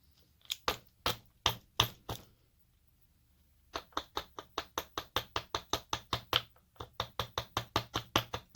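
Sharp knocking on a Mul-T-Lock cylinder during disassembly, as it is tapped to work a stuck pin out. A few separate knocks come first, then from about halfway in a steady run of about four knocks a second.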